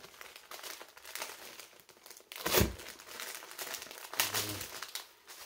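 Plastic packaging crinkling and rustling as it is handled and torn open, with one sudden loud thump about halfway through.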